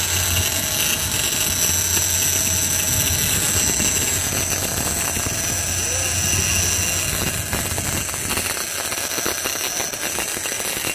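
Big-game lever-drag reel's drag whining steadily and high as a hooked bluefin tuna pulls line off the reel, with a low hum underneath that drops away about eight seconds in.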